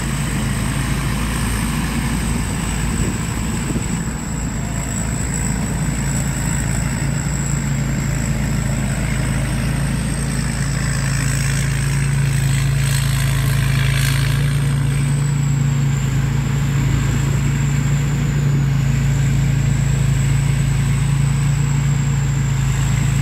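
Rice combine harvester's diesel engine running steadily as it harvests, a low hum that grows a little louder about halfway through, with a thin high whine above it.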